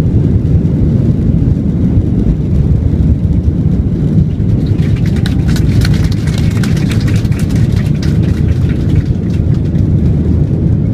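Airliner's engines rumbling loudly and steadily during takeoff, with a spell of rapid rattling clicks from about four to nine seconds in.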